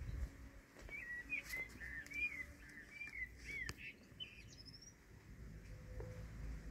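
A bird chirping faintly: a run of short, arched notes for about three seconds, then a couple of higher, thinner notes, over a faint low rumble.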